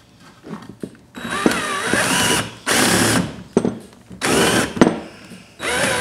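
A cordless drill drives a wood screw into a pocket hole in four short runs of about a second each, its whine wavering up and down. The driver bit is stripped and does not hold the screw head well.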